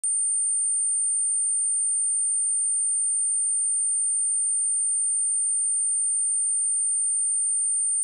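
A pure 8947 Hz sine-wave test tone: one steady, very high-pitched whistle held at constant level, starting abruptly with a faint click. It is played to test speakers and to shake water and dust out of them.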